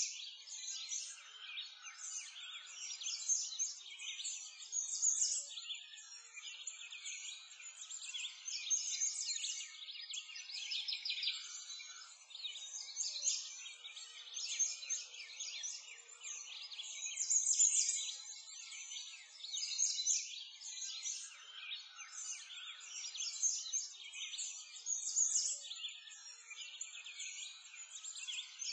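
Many small birds chirping and singing at once, a continuous high-pitched chorus that rises and falls in waves.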